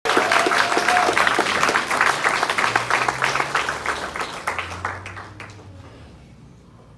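Audience applauding, the clapping loud at first, then thinning out and dying away over about five seconds.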